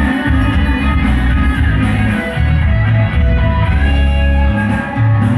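Loud music with guitar over a heavy, regular bass beat, played through a sound system.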